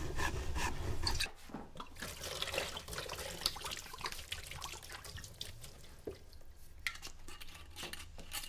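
Washing up at a kitchen sink: water splashing and running, with dishes and utensils clinking in short clicks. A louder low rumble cuts off about a second in.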